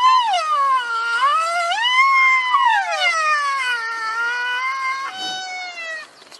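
Rhinoceros giving long, high whining calls that slide up and down in pitch. A second call overlaps the first in the middle, and a shorter, higher call follows near the end.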